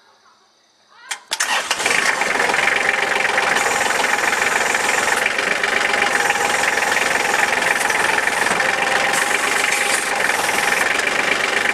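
A Kubota compact tractor's diesel engine starts about a second in and then runs steadily.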